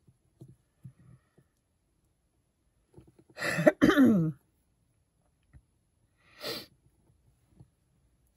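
A woman coughing once, loudly, midway through, with a falling throaty sound at its end. A few faint small knocks come in the first second or so, and a softer breath near the end.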